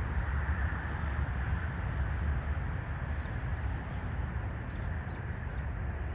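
Steady low rumbling outdoor noise that wavers in level, with a few faint high ticks.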